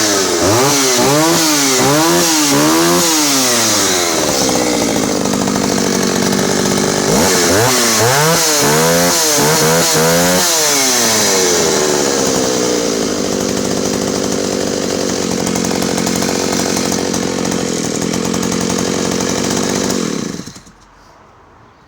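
Vintage Jonsered Raket 60 56cc two-stroke chainsaw running and revved in a run of quick throttle blips. It settles to a steady idle, is blipped several more times, then idles until the engine stops abruptly near the end.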